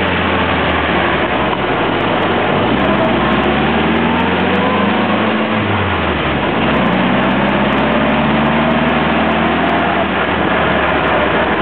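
1947 Willys' four-cylinder flathead engine running under way, with noise from the open-bodied cab. The revs drop about six seconds in, then run on steadily.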